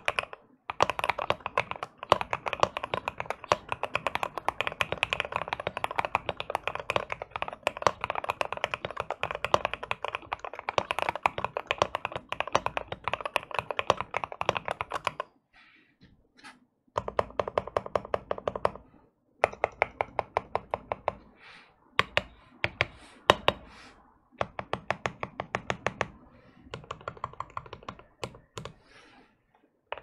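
Custom-modded Akko MOD 005 mechanical keyboard being typed on, with Krytox 205g0-lubed Jwick Ultimate Black linear switches, OEM keycaps, a tape mod, PE switch pads and extra case foam giving a deep thocky sound. Fast continuous typing for about fifteen seconds, a short pause, then shorter runs of keystrokes with brief gaps.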